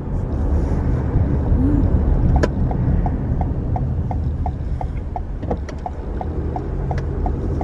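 Steady road and engine rumble inside a moving car's cabin, with the turn signal ticking evenly, about three ticks a second, starting after a sharp click a couple of seconds in.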